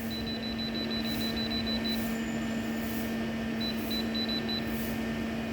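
Steady electrical hum from electronic equipment, with a faint high-pitched tone pulsing rapidly on and off during the first two seconds and again about four seconds in.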